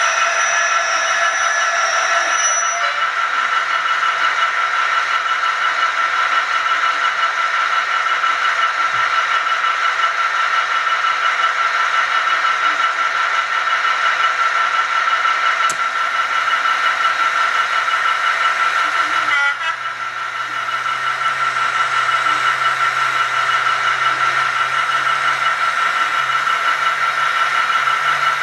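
HO-scale model railway running: a steady high whine with one constant tone and a hiss. About two-thirds of the way through, a low motor hum joins in and rises in pitch near the end.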